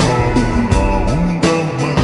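Background rock music with a steady beat and guitar.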